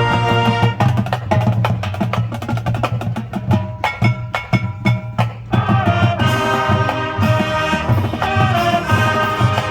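High school marching band playing. A held chord gives way to a passage of rapid percussion hits, and the winds come back in with sustained chords a little over halfway through.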